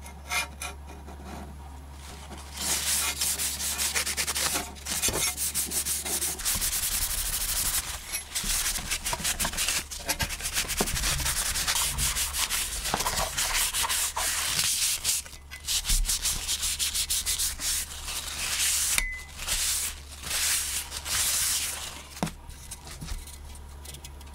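A cloth rubbed briskly back and forth over a carved wooden hand-saw handle, buffing its finish. It comes in spells of a few seconds with short pauses.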